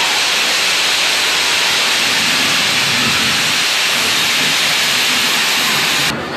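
Stage spark fountains hissing loudly and steadily, stopping suddenly near the end.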